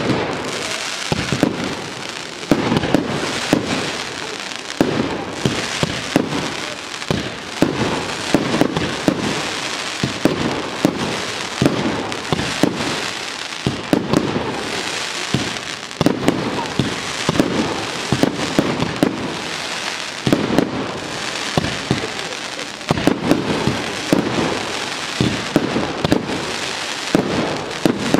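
Aerial fireworks bursting in a fast, continuous display. There are many sharp bangs, often more than one a second, over a continuous hiss.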